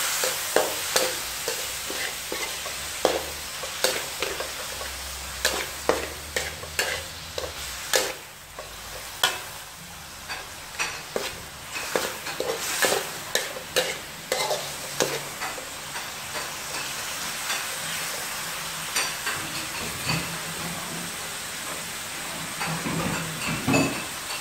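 Pork pieces sizzling in hot oil in a metal wok while a metal ladle scrapes and knocks against the pan in quick strokes. The strokes thin out after about fifteen seconds, leaving mostly the steady sizzle.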